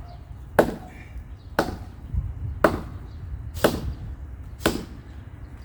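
A hand tool chopping into wood: five sharp strikes at a steady rate of about one a second.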